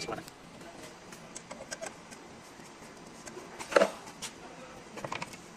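Light metallic clicks from engine parts being handled, with one louder clank about four seconds in, during work at the camshaft sprocket and timing chain.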